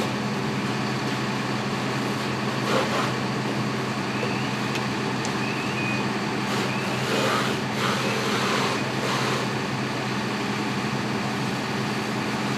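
Fire engine running steadily, pumping water to the hose, under the hiss of the hose stream spraying the burning minivan.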